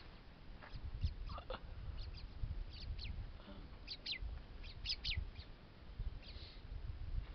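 Short, high chirping calls, each falling quickly in pitch, coming singly and in quick runs of two or three, thickest around the middle, over a low uneven rumble.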